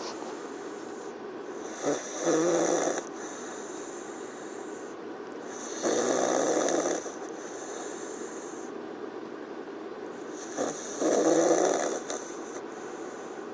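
A sleeping pet snoring: three loud snores, each lasting about a second, coming roughly every four to five seconds.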